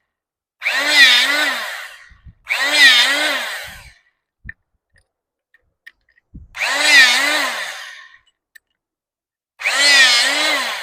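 Portable hydraulic rebar cutter's electric pump motor whining in four bursts of about a second and a half each as it cuts 12 mm ribbed rebar, its pitch wavering under load. Dull knocks come between the bursts.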